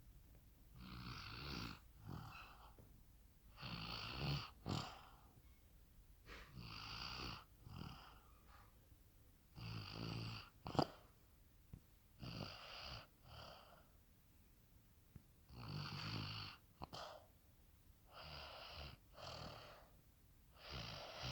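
Rhythmic snoring, about one breath every three seconds, each a longer snore often followed by a short one, with a sharp click about halfway through.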